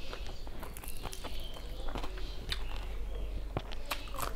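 Close-miked eating sounds of rice and dal eaten by hand: irregular wet chewing clicks and lip smacks, mixed with fingers squishing and mixing rice on a steel plate.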